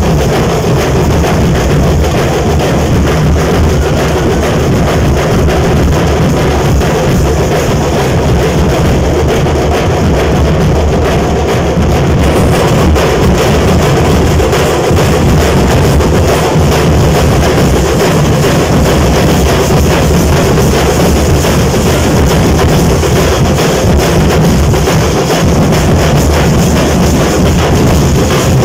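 Nasik dhol ensemble: many large barrel drums beaten together with sticks in a loud, dense, continuous rhythm.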